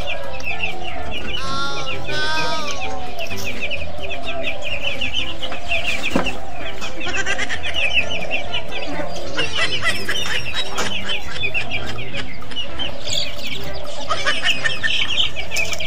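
Chicks peeping in rapid, high chirps, with hens clucking.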